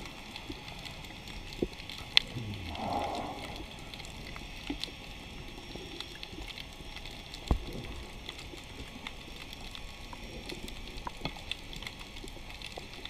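Underwater ambience picked up by a diver's camera: a constant crackle of tiny clicks, with a burble of scuba regulator exhaust bubbles about three seconds in. There is a sharp click a little over two seconds in and a dull thump past the halfway point.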